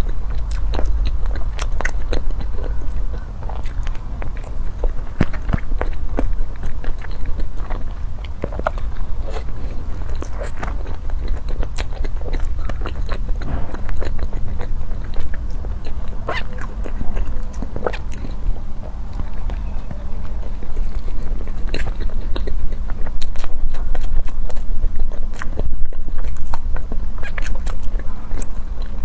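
Close-miked eating: a person biting and chewing food, with many small, irregular mouth clicks and smacks.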